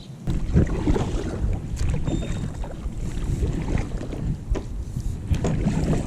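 Kayak on the water with a steady low rumble on the microphone and scattered light knocks, starting abruptly just after the start.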